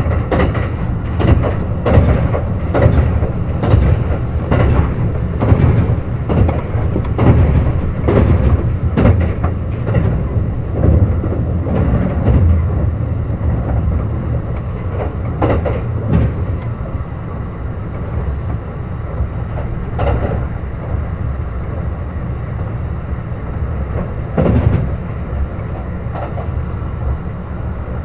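Kintetsu 21000 series Urban Liner Plus electric limited express running at speed, heard from on board: a steady rumble of wheels on rail. Through the first half it comes with a rapid clatter of wheels over rail joints and points, and later it runs smoother with an occasional clack.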